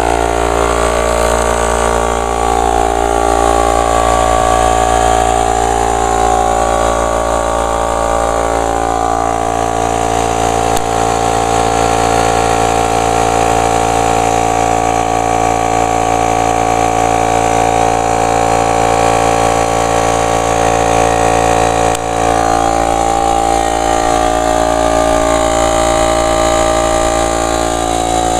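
Craftsman 1.5 hp, 3-gallon air compressor's motor and pump running steadily at a loud, even pitch, filling the tank as the pressure builds.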